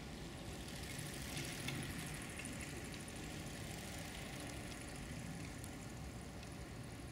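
A steady low rumble under a faint hiss, with a few small, faint ticks and rustles from a European hedgehog nosing through clover and grass as it forages. A faint, evenly pulsing high-pitched chirr runs over it.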